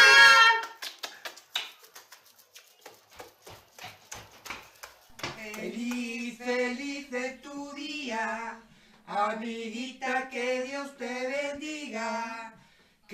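A scatter of light taps and clicks, then a man and a woman singing together in two slow phrases of long held notes, with a short break between them.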